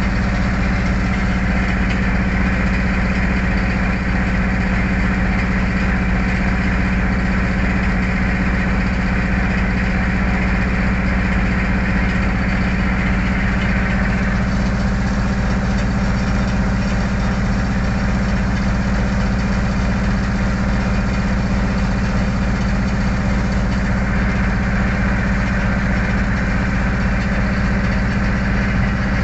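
A river ferry's engine running steadily under way, a constant low drone, with a steady rushing hiss over it.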